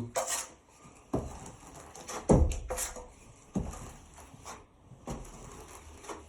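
A drywall knife spreading and scraping joint compound over a drywall patch: about six short, separate scraping strokes.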